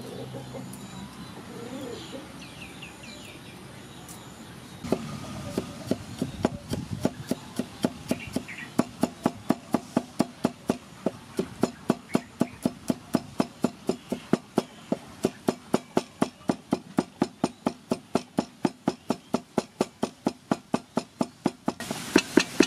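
Cleaver chopping garlic on a thick round wooden chopping block: rapid, even knocks of the blade on the wood, about four a second, starting about five seconds in.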